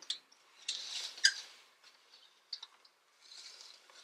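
Handling of an embroidered canvas shoulder bag on the body: clothing and fabric rustle, with a few sharp clicks of the strap's metal clasps and dangling D charm. The loudest click comes about a second in.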